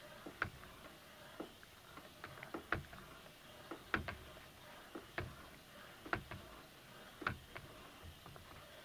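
Irregular taps and clicks, roughly one a second, of a stick blender's head knocking against the stoneware crock pot as it is stirred by hand through thin soap batter, with its motor off.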